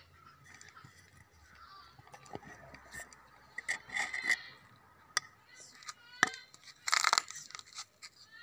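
Domestic cats meowing, with one short meow about four seconds in, among light clicks and a brief scraping rustle about seven seconds in.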